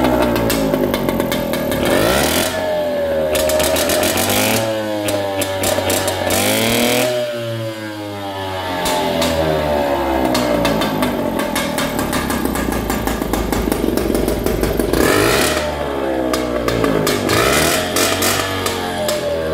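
Freshly rebuilt Mobylette moped engine, a small single-cylinder two-stroke, running on its first runs. The throttle is opened and let off several times, so the revs climb and fall back every few seconds.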